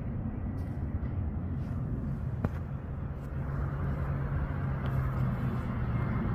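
Low, steady rumble of motor-vehicle traffic, with an engine hum that holds steady through the middle. A single sharp click comes about two and a half seconds in.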